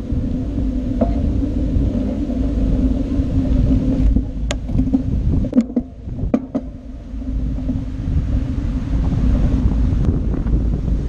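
Wind and road rumble on an action camera riding along on a bicycle: a steady low rumble and hum, dipping briefly a little past halfway, with a few sharp clicks or knocks about halfway through.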